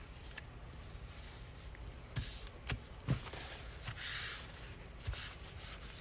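Paper being handled and pressed while a paper pocket is glued: a few light taps a couple of seconds in, and a brief rubbing rustle of paper about four seconds in.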